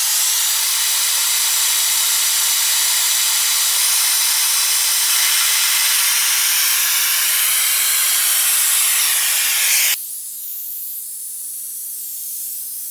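Air-powered vacuum brake bleeder hissing loudly and steadily as compressed air runs through it, sucking old brake fluid out through a caliper bleeder valve. About ten seconds in the hiss cuts off abruptly, leaving a much fainter high hiss and a faint steady hum.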